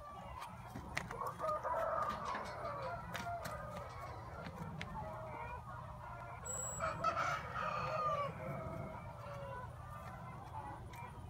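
Farmyard fowl calling in two bouts, one about a second in and another just past the middle.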